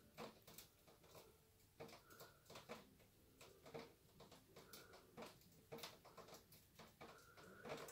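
Near silence, with faint, irregular small clicks and taps.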